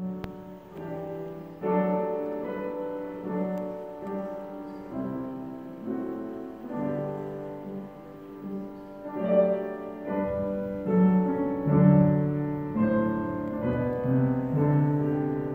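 Slow classical-style piano music, its notes changing about once a second.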